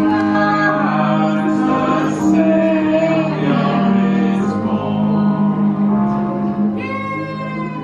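Karaoke singing of a Christmas song over a music backing track, with a higher held note near the end.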